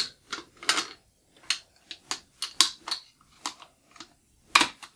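Remington 1100 shotgun's bolt and action bars being worked into the receiver by hand: a string of separate small metal clicks and clinks, with one louder click near the end.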